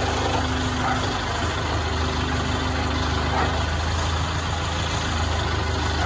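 Truck-mounted crane's engine running steadily while it lowers a heavy suspended load.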